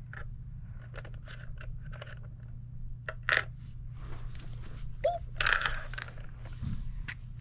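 Small toy groceries being handled and set down at a toy checkout: scattered light clicks and knocks with crinkly rustling, over a steady low hum.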